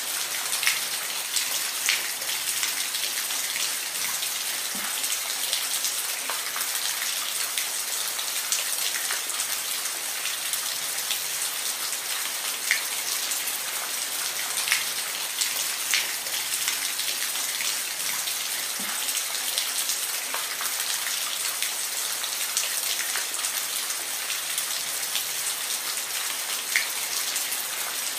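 Steady rain falling, a dense hiss with individual drops ticking sharply on a nearby surface every second or so.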